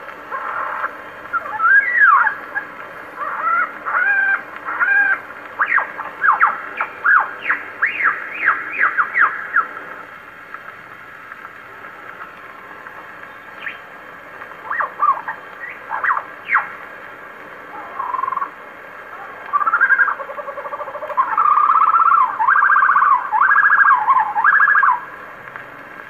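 Lyrebird song played from an old shellac record on a wind-up Victor Victrola gramophone, with record hiss underneath. Loud whistled notes give way to a rapid run of falling whistles. After a lull come a few sharp sweeps, and near the end a loud warbling trill.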